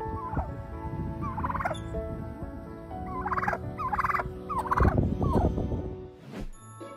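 Domestic turkey calling: a series of short, pulsing trill-like calls, about five of them, the last and loudest about five seconds in, over a low rumble.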